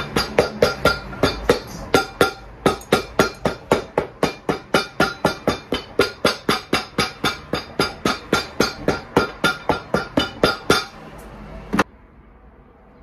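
Cobbler's shoe hammer beating rapidly on the bottom of a leather boot held on a stand, about four ringing blows a second. The blows stop near the end after one last single strike.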